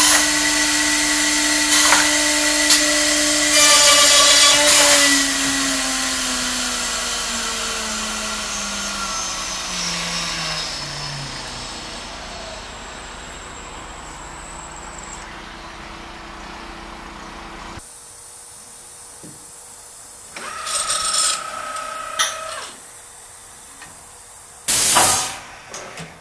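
US Concepts CRD-300 automatic handrail drilling machine boring the last baluster holes in a wooden handrail. A steady spindle-motor tone is broken by loud drilling bursts in the first few seconds. The spindle then spins down with a slowly falling whine, and near the end two short noisy bursts follow, the louder one about a second before the end.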